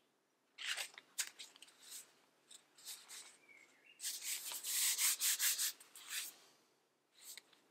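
Paper and a softcover book being handled: a page rustling, then the book closed, rubbed in the hands and turned over, an irregular run of scuffs and rustles, loudest from about four to five and a half seconds in.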